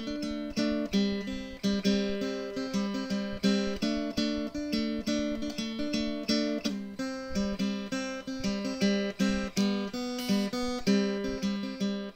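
Background music: an acoustic guitar strummed in a steady, even rhythm.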